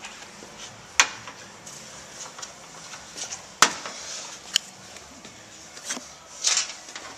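Hand tools being handled on a concrete shop floor: four sharp metallic clinks and knocks, the loudest about a second in and just after three and a half seconds, then a short scraping rustle near the end.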